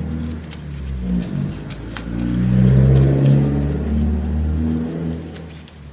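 Low engine rumble of a passing motor vehicle, swelling to its loudest about three seconds in and fading away near the end, with a few light clicks over it.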